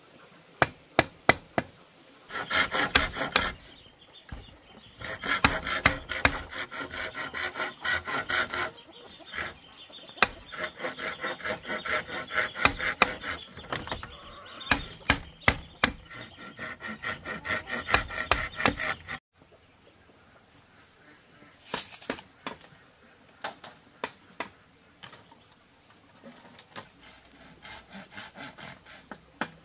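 Bamboo being worked by hand with a blade: stretches of quick, repeated strokes across the bamboo, with sharp clicks and knocks of bamboo pieces. The strokes stop abruptly a little past halfway, leaving only scattered clicks.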